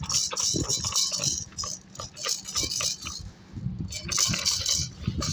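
Baby rattle shaken irregularly: quick rattling clicks with a bright hiss, pausing briefly a little past the middle.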